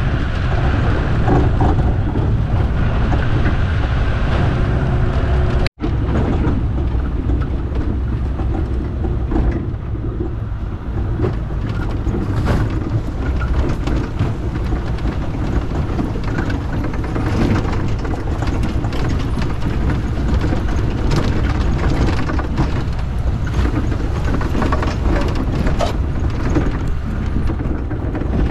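A vehicle driving on a bush track: a steady low engine and road rumble with scattered knocks and rattles. The sound drops out for an instant about six seconds in.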